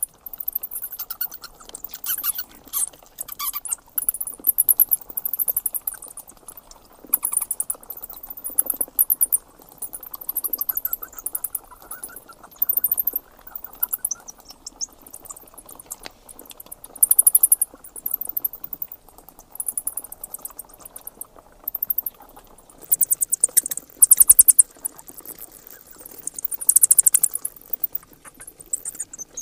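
A roosting colony of flying foxes (fruit bats) chattering and squeaking: bursts of rapid, high-pitched chatter come every few seconds, with softer squeaks between them.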